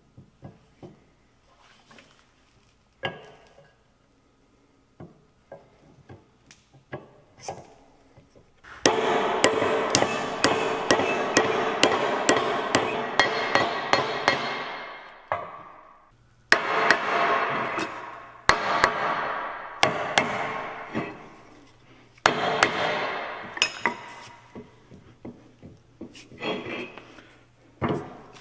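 Steel hammer blows on a front-axle U-joint and its rusty yoke, seating the new joint's needle-bearing caps; metal on metal, ringing. Light scattered taps at first, then several runs of quick, ringing blows from about nine seconds in.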